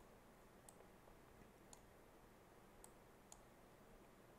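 Near silence with a few faint, sharp clicks about a second apart, from working a computer.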